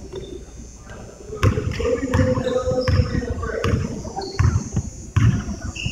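Basketball dribbled on a hardwood gym floor: a steady run of about seven bounces, roughly one every 0.7 s, starting about a second and a half in.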